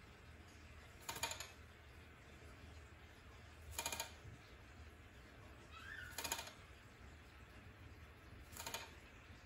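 A cockatiel scurrying sideways along a wooden branch perch with its wings raised and flapping: four short rattling bursts of claws on wood and wing flutter, about two and a half seconds apart. A faint short rising chirp comes just before the third burst.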